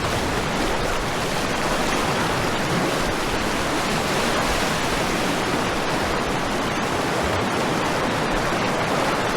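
Rushing whitewater of river rapids: a steady, unbroken noise of churning water.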